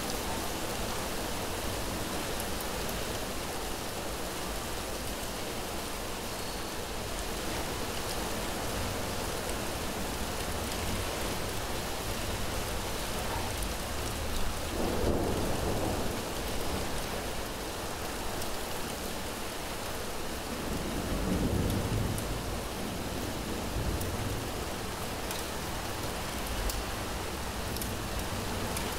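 Steady heavy rain, with two low rolls of thunder, one about halfway through and another a few seconds later.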